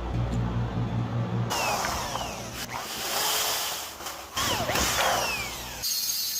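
Power tool working on a spark plug. A low electric hum gives way to loud, harsh grinding about a second and a half in, which cuts off abruptly near the end.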